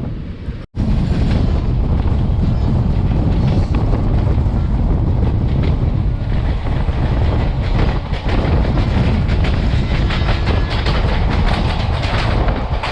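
Indian Railways express passenger train running on the track, heard from on board: a steady loud rumble of wheels with clattering and rattling of the coach, after a brief dropout under a second in.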